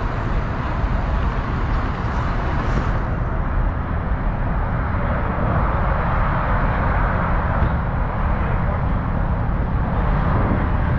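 Steady vehicle noise with no single stand-out event.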